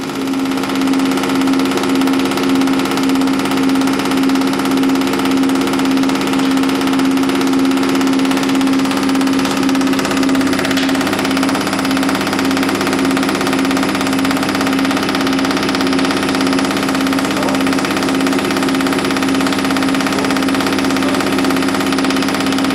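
Diesel injector test bench running: the drive motor spins the high-pressure fuel pump with a loud, steady hum while a Bosch common-rail injector is fired in the idle/start test at about 300 bar. It cuts off suddenly near the end.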